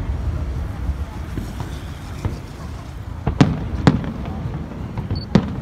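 Aerial firework shells bursting overhead: a few faint cracks, then two sharp bangs about half a second apart, roughly three and a half seconds in, over a steady low rumble.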